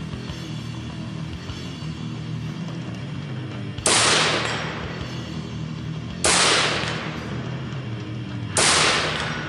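Three rifle shots fired from prone, about two and a half seconds apart, each cracking sharply and dying away quickly.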